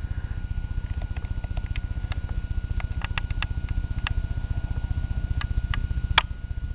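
A vehicle engine running with a steady, rapid low throb, with light clicks and rattles scattered over it and one sharper click about six seconds in.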